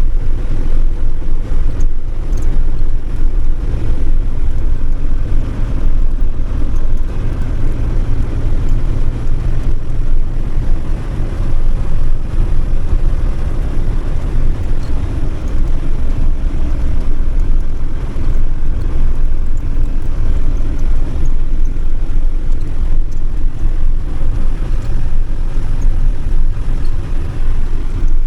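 Campervan driving along a road: a steady, loud, low rumble of engine and tyre noise that holds an even pace throughout.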